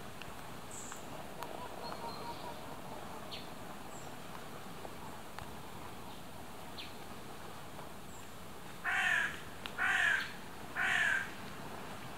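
A bird calling three times, about a second apart, each call short and harsh, over a steady faint outdoor hiss with a few small chirps.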